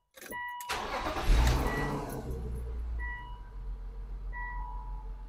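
BMW Z3 engine cranked by the starter, catching about a second later and settling into a steady idle. A few short chime tones sound over the idle.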